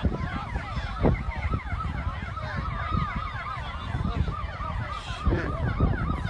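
Several emergency-vehicle sirens sounding at once, their fast up-and-down sweeps overlapping, over a steady low rumble.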